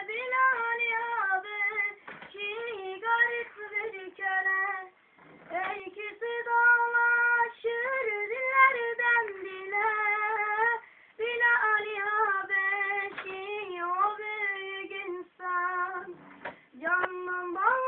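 A child's high voice singing solo without accompaniment: long ornamented phrases with wavering, sliding pitch, broken by short breaths. The sound is thin and lacks top end, as from a mobile phone recording.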